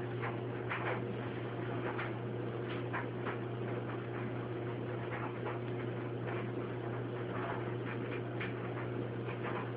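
Steady low hum with scattered faint, irregular clicks and ticks.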